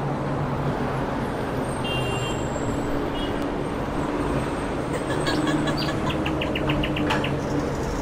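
Steady outdoor background rumble like distant traffic, with a bird's short high chirps and, about five seconds in, a quick run of repeated chirps.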